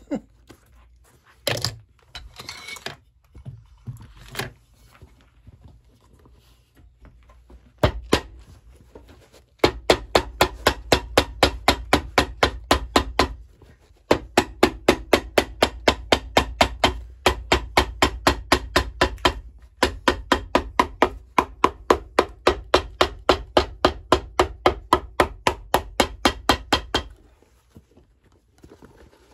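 Cobbler's hammer tapping a new leather welt flat against a shoe on an iron last: a few scattered knocks, then rapid, even strikes at about four a second in three long runs.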